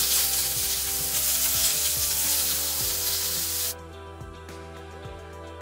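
Carrot and celery strips sizzling in hot oil with garlic in a stainless steel frying pan while being stirred with chopsticks; the sizzle cuts off suddenly a little after three and a half seconds in, leaving background music.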